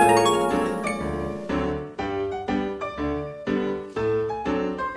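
Background music: a light keyboard tune with a piano-like sound, its notes and chords struck in a regular beat of about two a second.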